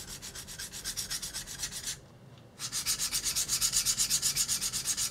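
Steel chef's knife blade scraped back and forth on a whetstone in quick, even strokes, about seven a second, with a short pause about two seconds in and louder strokes after it. This is the blade being ground down on one side to turn its double-bevel edge into a single bevel.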